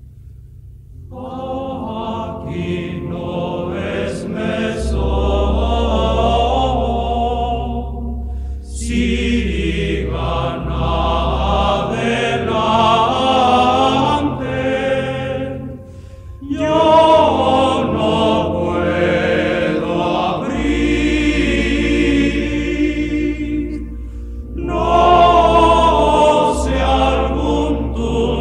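Background music: a choir singing in phrases separated by short pauses, over steady low bass notes.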